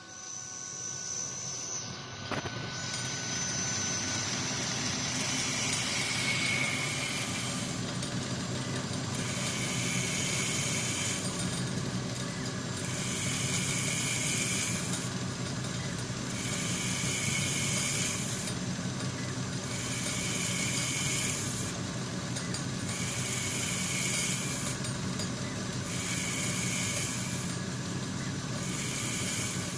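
Lathe converted to CNC running, with a hissing cutting noise that switches on and off about every two seconds.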